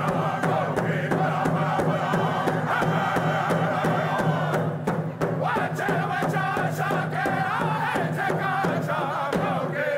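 A group of Native American singers chanting together to a steady beat on rawhide hand drums, over a sustained low note.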